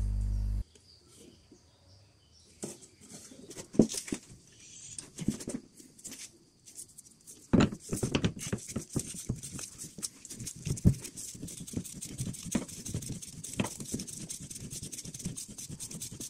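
Scattered metallic knocks, then from about halfway a fast run of small clicks as a ratchet wrench on a long extension turns a new inner tie rod onto the steering rack.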